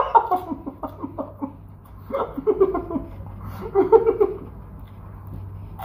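A person laughing in three short bouts, at the start, about two seconds in and about four seconds in.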